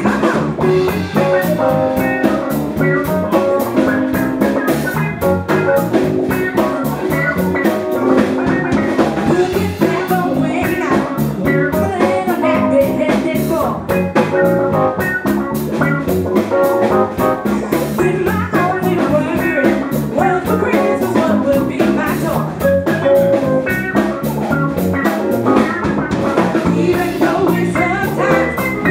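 A live showband playing an up-tempo pop-soul number, electric bass and drums driving a steady groove under the rest of the band.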